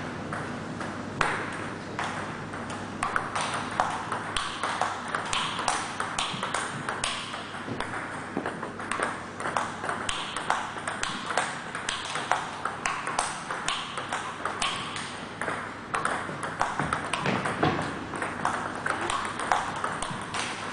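Table tennis ball being hit back and forth in a steady practice rally: a quick, even run of sharp clicks as the ball strikes the bats and bounces on the table.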